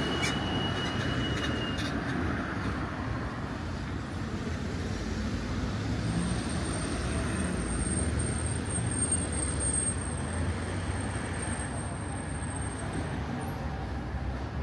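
Road traffic passing along a street: a steady rumble of vehicles. A thin high whine sounds for several seconds in the middle.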